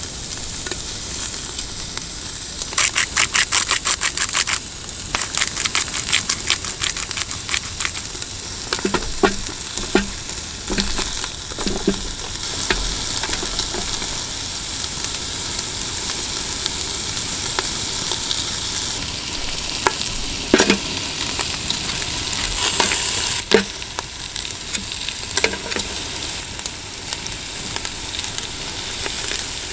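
Food sizzling in a hot pan with a steady hiss, while a utensil stirs and taps against it: a quick run of clicks in the first few seconds, then scattered knocks.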